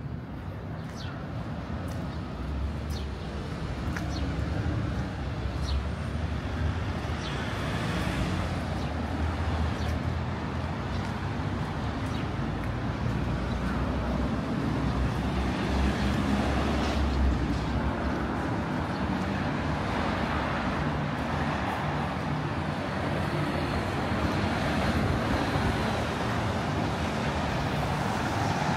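Road traffic on a wet street: vehicles passing with a steady tyre hiss and low engine rumble, growing louder over the first few seconds and then holding.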